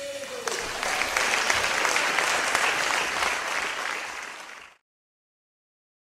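Audience applauding, swelling about half a second in, then tapering off and cutting off suddenly near the end.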